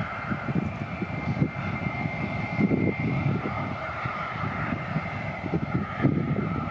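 Jet engines of an Airbus A320-family airliner rolling along the runway: a steady high engine whine over an uneven low rumble.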